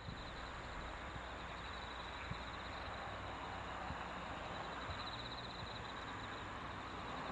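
Quiet outdoor ambience: a steady low hiss with a faint, high, finely pulsing trill and one or two faint knocks.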